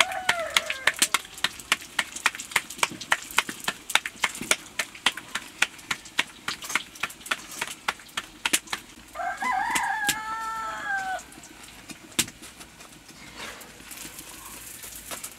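A rooster crows once, a drawn-out wavering crow of about two seconds starting about nine seconds in; the tail of an earlier crow fades out in the first second. Sharp, irregular clicks and taps sound all through.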